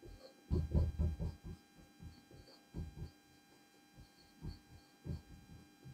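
Marker pen writing on a whiteboard in short, irregular strokes, faint, over a steady low electrical hum.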